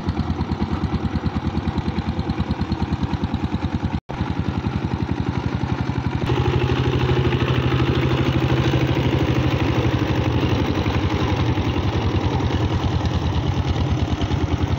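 Two-wheel power tiller's single-cylinder diesel engine chugging steadily under load as its cage wheels churn through flooded paddy mud. The sound cuts out for an instant about four seconds in and runs a little louder after about six seconds.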